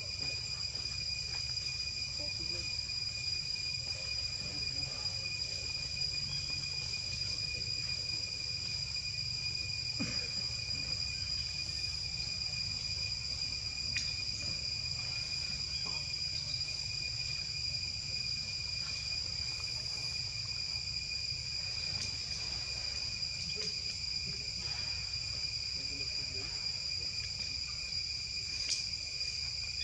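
Steady, high-pitched chorus of insects droning without a break, over a low steady rumble, with a few faint ticks.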